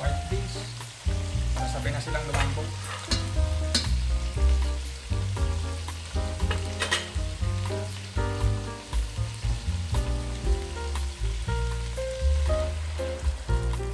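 Pork ribs sizzling in oil in a pan, stirred with a metal ladle that scrapes and knocks against the pan now and then, under background music.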